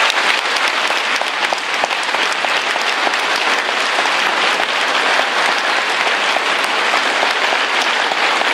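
A large audience applauding: many people clapping steadily and densely.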